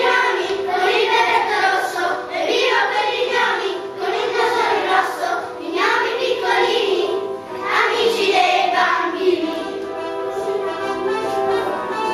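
A group of young children singing a song together over instrumental music. About ten seconds in the voices stop and the instrumental music carries on.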